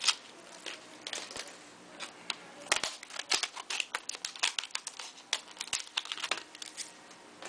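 Plastic retail card packaging crinkling and crackling as it is handled and opened, with irregular sharp crackles throughout.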